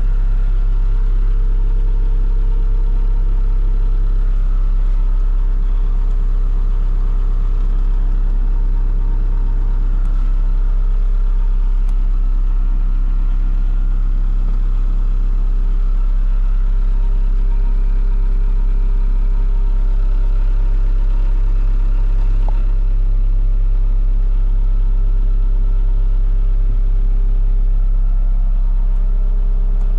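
2018 ASV RT120 skid steer's diesel engine running steadily at idle, its note shifting slightly a few times.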